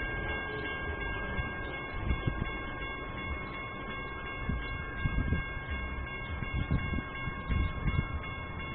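Grade-crossing warning bell ringing steadily, signalling an approaching train, with wind gusting on the microphone.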